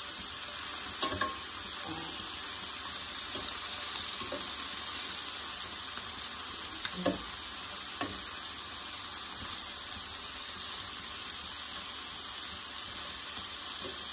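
Shrimp frying in butter in a skillet, a steady sizzle. A few light clicks of a fork against the pan as the shrimp are turned, the sharpest about seven seconds in.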